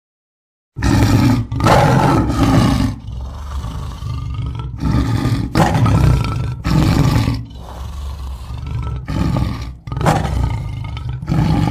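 Big cat roaring, given out as a leopard: a run of loud, deep, rasping roars, most under a second long, with lower, longer growling between some of them. It starts about a second in and cuts off abruptly at the end.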